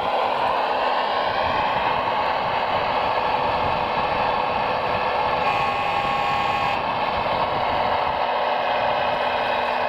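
Electric motors and gearing of radio-controlled scale construction machines running with a steady mechanical whine and rattle. A motor whine rises in pitch over the first second or two.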